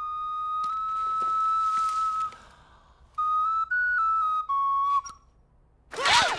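A small wooden pipe playing a single clear note held for about two seconds, then after a brief pause a short tune of a few notes stepping up and down. Near the end, loud startled cries break in suddenly.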